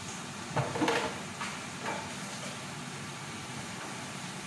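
A spoon scraping and clinking against a pot a few times in the first two seconds, then a steady low background hum.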